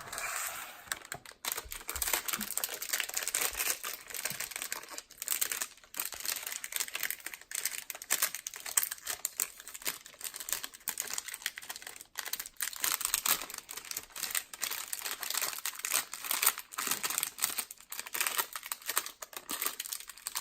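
A granola bar wrapper being opened and handled: continuous crinkling and crackling, with some tearing.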